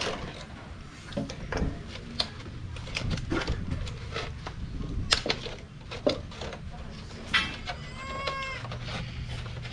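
Thin clear plastic bottles being handled and fitted together by hand, with irregular crackles and clicks of the plastic. About eight seconds in, a short, high call that bends in pitch rises over a low steady hum.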